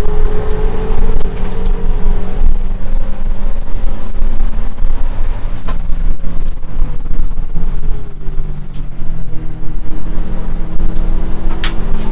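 Subaru WRX race car's turbocharged flat-four engine, heard from inside the cabin, running hard on track. Its note slides down in pitch through the middle and then steadies. Two sharp clicks come, one about halfway and one near the end.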